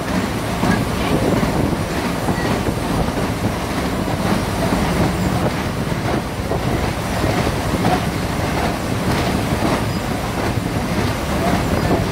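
15-inch gauge passenger train running through a tunnel, heard from an open-sided carriage: a steady rumble of wheels on rails with rail-joint clicks and a faint wheel squeal now and then.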